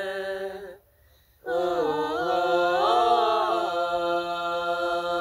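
Singing: a held note breaks off under a second in, then after a brief pause a long drawn-out vowel bends up and down in pitch before settling on a steady note.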